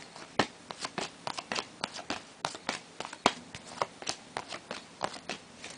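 Stack of 2009/10 Topps basketball trading cards being flipped through one after another: an irregular run of crisp card flicks and taps, several a second, with one louder snap a little past three seconds in.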